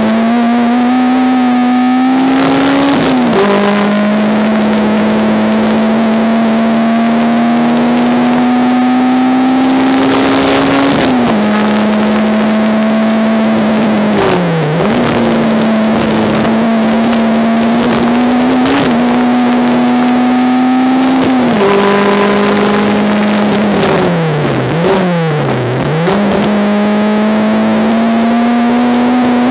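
Honda Civic race car engine heard from inside the car at racing speed, its pitch climbing through each gear and dropping at upshifts about 3 and 11 seconds in, then falling through quick blipped downshifts around 15 seconds and again near 25 seconds under braking. The recording is loud and harsh.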